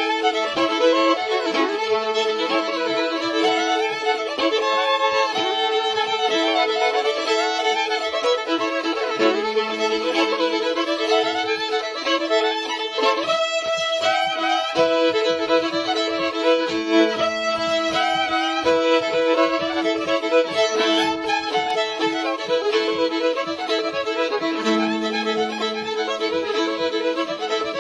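Old-time string band playing a fiddle tune live, with fiddle leading. The fiddle holds steady droning notes under the melody, and a lower note comes and goes beneath it.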